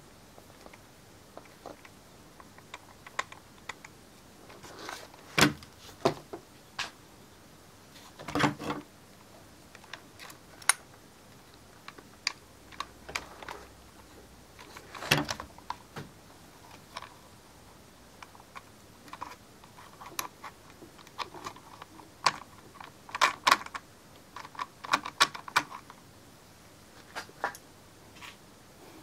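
Irregular clicks, taps and light rattles of a hex key and small parts handled against the plastic chassis and drivetrain of an HPI Savage XS Flux RC car while its slip clutch is adjusted, with a few louder knocks.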